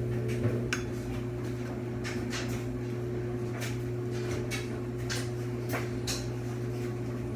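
Kitchen room tone: a steady low hum with a few light clicks and knocks scattered through it.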